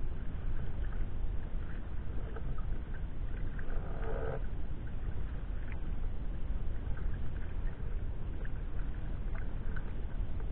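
Wind rumbling on the microphone during sea-kayak paddling, with small splashes and drips from the paddle and water. A brief pitched call sounds about four seconds in.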